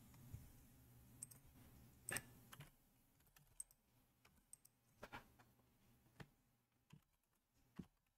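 Near silence, broken by about half a dozen faint, scattered clicks.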